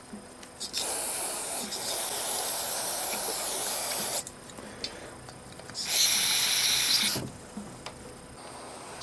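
Two long hissing blasts of pressurized spray blowing out the passages and holes of a riding-mower carburetor during cleaning. The first lasts about three and a half seconds; the second, about two seconds later, is shorter and louder.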